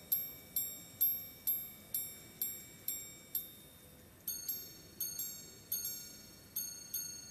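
Philippe Dufour Grande Sonnerie No. 3 wristwatch chiming its repeater on the gongs after a press on the crown. First comes an even run of single ringing strikes about half a second apart, the hours; then, after a short pause a bit past the middle, quicker strikes in twos with a different tone, the quarters.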